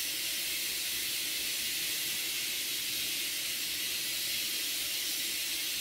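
Steady, even hiss with no distinct sounds in it: the background noise of the recording.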